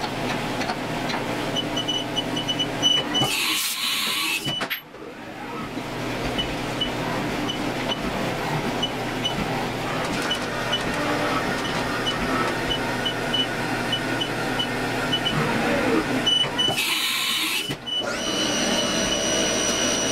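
HAAS TM-1 CNC milling machine running with a steady mechanical hum, through a string of short high beeps. Two brief hissing bursts come about three and a half seconds in and again about sixteen seconds in.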